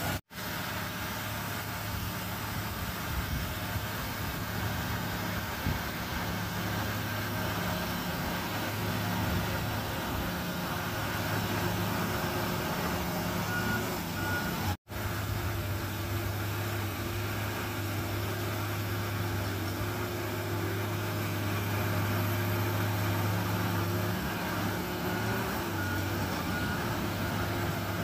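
Shantui crawler bulldozer's diesel engine running steadily under load as it pushes soil, with a few short reversing-alarm beeps about halfway through and again near the end. The sound cuts out for an instant twice.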